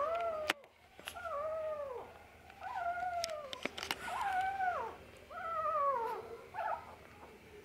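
Newborn Shih Tzu puppies crying: a string of high, mewing cries, about one a second, each falling in pitch, with a few sharp clicks in between.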